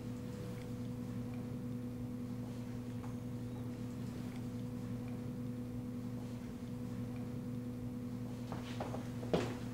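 Quiet room tone: a steady low hum with no other activity, and a single soft knock near the end.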